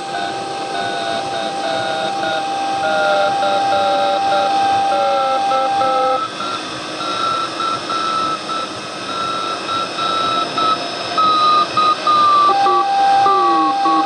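Shortwave radio receiving a Morse code signal, the letter C sent over and over: keyed beeping tones that drift slowly down in pitch over steady static hiss. A steady whistle tone sounds alongside for the first half and comes back near the end.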